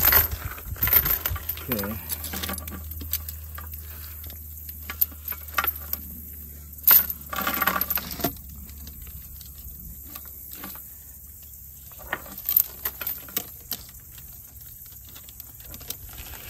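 Steel chain clinking and rattling against a tractor's steel wheel rim as it is threaded through the rim holes and wrapped around a log, in irregular clinks with a louder rattle about seven seconds in.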